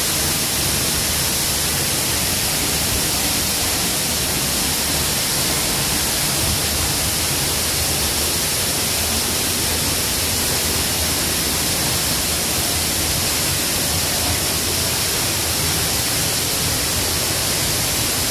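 Steady rushing water of a waterfall: an even, unbroken wash of noise with no breaks.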